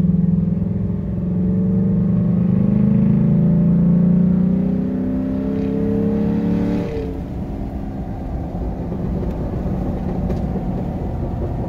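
Ford F-150 pickup's engine and exhaust burbling under acceleration, heard from inside the cab. A low, pitched drone rises slowly in pitch for about seven seconds, then breaks off into a quieter, rougher running sound.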